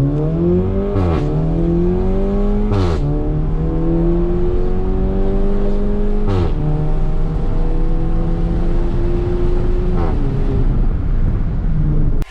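Car engine accelerating hard up through the gears. Its note climbs, then drops at three upshifts about one, three and six and a half seconds in, each with a short crackle. About ten seconds in it drops again and the note slowly falls as the car eases off.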